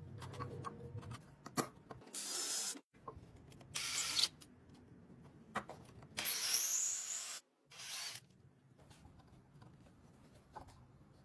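Handheld electric drill boring into a wooden block in four short bursts, the longest a little past halfway and just over a second long. Light scraping and clicking of tools on wood between the bursts.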